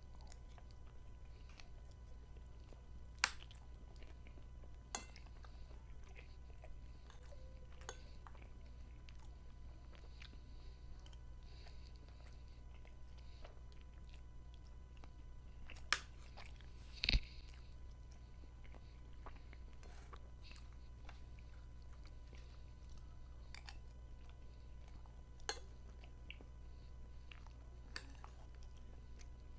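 Close-up chewing of soft macaroni pasta, broken by a few sharp clicks of metal cutlery against a ceramic plate, the loudest two close together past the middle, over a steady low hum.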